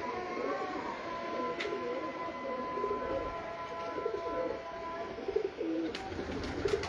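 Domestic pigeons cooing in their loft, many low coos overlapping continuously, with a few sharp clicks near the end.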